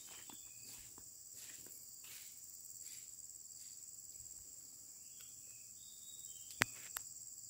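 Insects chirring in a steady, high-pitched drone, with faint scuffs in the first few seconds and two sharp clicks near the end.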